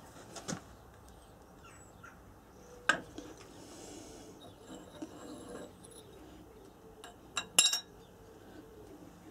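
Steel alternator rotor parts and press tooling clinking and knocking as they are handled on the steel bed of a press: a few sharp separate clinks, the loudest a pair near the end as the rotor is lifted off.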